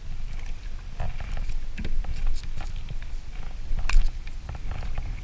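Scattered clicks and knocks of a small striped bass being handled and unhooked from a bucktail against a plastic kayak, over a steady low rumble; the loudest knock comes near the end.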